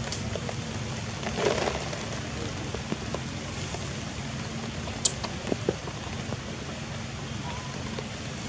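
Outdoor ambience: a steady low rumble with scattered light clicks and ticks, and a brief rustling burst about one and a half seconds in.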